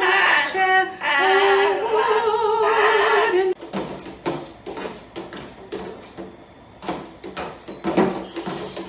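A voice singing held notes with a wavering vibrato, cut off abruptly about three and a half seconds in. After it comes a scattered run of light clicks and taps with short pitched sounds.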